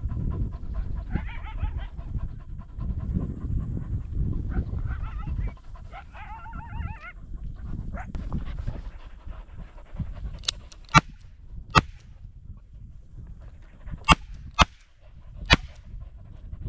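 Pistol fired six times into the air, in two quick groups of three, from about ten seconds in. Before the shots, panting and rustling through grass, with short wavering high cries.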